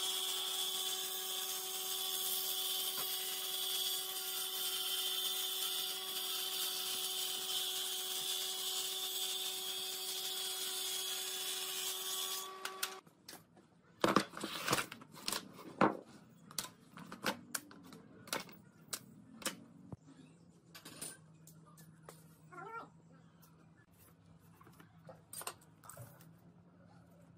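A sliding table saw runs steadily with a constant whine as a board is fed through the blade. About halfway through it gives way to sharp wooden knocks and clatter as a stack of thin wooden slats is handled and set on a tabletop, then lighter taps and ticks.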